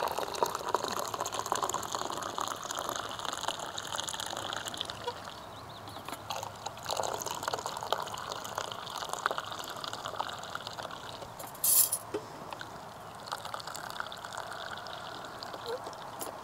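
Tea being poured into a cup: a splashing trickle of liquid, busiest in about the first five seconds. A brief sharp knock comes about two-thirds of the way through.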